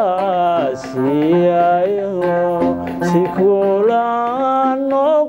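A man sings a Somali qaraami song in long, wavering, ornamented notes, accompanied by his own oud.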